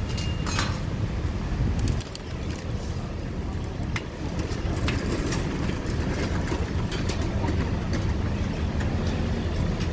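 Steady low street rumble, with scattered sharp metallic clicks of tongs tapping a wheel-cake griddle and its cakes.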